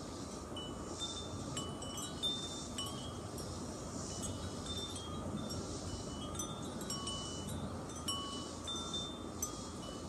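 Wind chimes ringing, with short clear tones at several pitches sounding on and off, over a steady background hiss.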